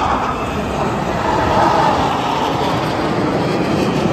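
Jet aircraft flying in formation, their engines a loud, steady rushing noise.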